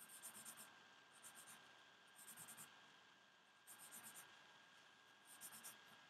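Drawing strokes: short bursts of quick scratchy strokes, a few strokes per burst, about one burst every second. A faint steady high hum lies under them.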